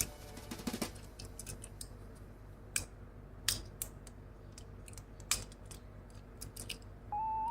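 Scattered light clicks and taps of die-cast toy cars and their packaging being handled, several sharp ones spaced about a second apart. A steady musical tone comes in near the end.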